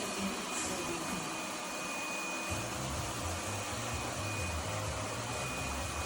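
Lefant M1 robot vacuum running, a steady whirr with a thin high whine. A lower hum joins about halfway through.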